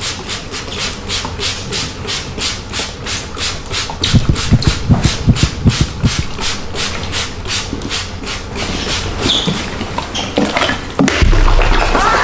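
Barber's spray bottle squirted rapidly over hair, a fast even run of short hisses about four or five a second, with a few low thumps about four seconds in. About eleven seconds in, a louder steady rush of water poured over the head begins.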